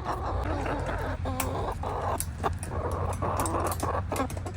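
Backyard hens clucking and chattering softly, with short calls among them, over scattered clicks and rustles and a low rumble.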